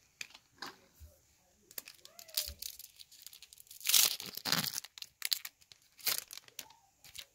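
Foil wrapper of a baseball card pack being torn open and crinkled, in short rustles with one longer, louder rip about four seconds in, then the cards handled as they come out.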